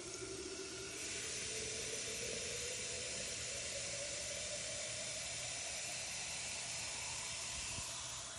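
Tap water running from a kitchen faucet into a plastic bottle, with a hollow tone that rises steadily in pitch as the bottle fills.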